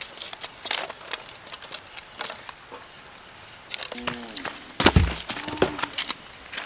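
Wood campfire crackling, with many short sharp cracks and pops of burning sticks and twigs, and a couple of heavier thumps about five and six seconds in.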